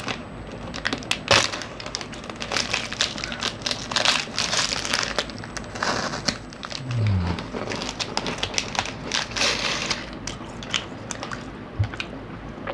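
Thin plastic snack wrapper crinkling and crackling in irregular bursts as it is handled and squeezed.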